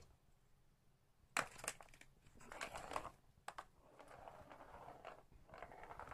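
A cat batting a light-up plastic ball around a Catit Senses Super Roller Circuit track. Its paw knocks sharply on the plastic several times, and the ball rattles as it rolls through the curved plastic tube.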